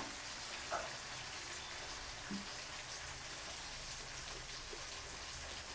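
Chicken 65 pieces deep-frying in hot oil: a steady sizzle with a few faint crackles.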